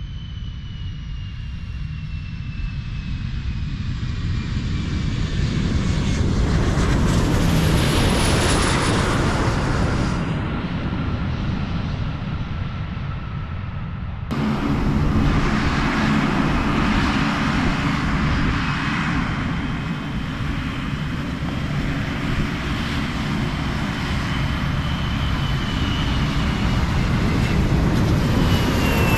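Large jet aircraft's engines on a runway: a loud steady rush with a turbine whine that falls slowly in pitch, building to a peak about eight seconds in. A sudden cut about halfway through jumps to another loud stretch of jet noise as a large jet rolls past.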